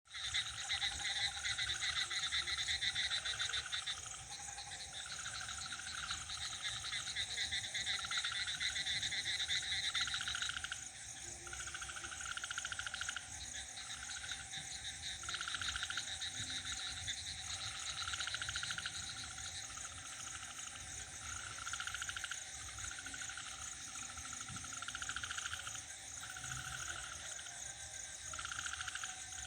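Night chorus of frogs and crickets: frogs calling in short, regularly repeated bouts over a steady high trill of crickets. A denser, louder chorus eases off about ten seconds in, leaving the frog calls spaced roughly a second and a bit apart.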